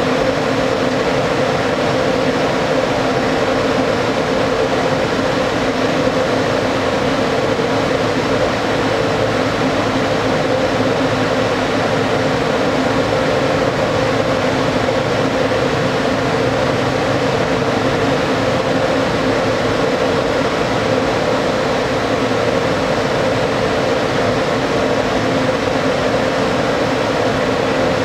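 Standing ÖBB Taurus electric locomotive, its cooling blowers and electrical equipment running with a steady hum and an even drone.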